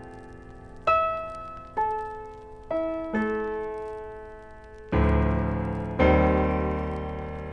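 Slow, gentle solo piano music: single notes struck about a second apart, then fuller, deeper chords in the second half, each left to ring and fade.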